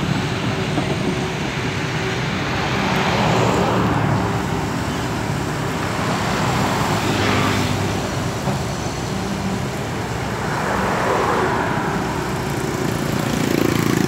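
Caterpillar 320D excavator's six-cylinder C6.4 diesel engine running steadily, as road traffic and motorbikes swish past several times.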